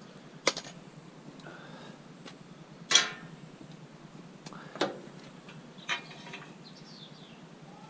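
Pieces of scrap metal knocking and clinking while they are handled and sorted: four separate knocks, the second one the loudest with a brief ring.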